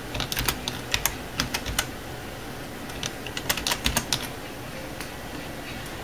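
Computer keyboard keys clicking as a volume name is typed, in two quick runs of keystrokes with a pause of about a second between them.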